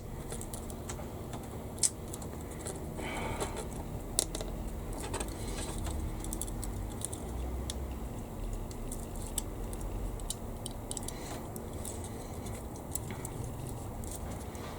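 Small plastic model-kit parts and tools being handled on a workbench: scattered light clicks and taps, a sharper click near the start and others about two and four seconds in.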